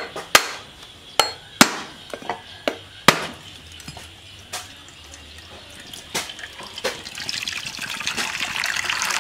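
Cleaver striking the top of a husked coconut, about ten sharp knocks, then coconut water pouring into a metal bowl, a steady splashing that builds near the end.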